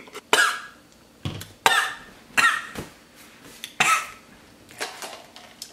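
A man coughing repeatedly, about seven short coughs spread over five seconds.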